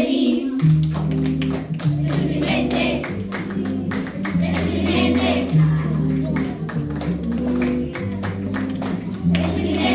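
Children singing together over instrumental music with a steady bass line, with hand clapping in time.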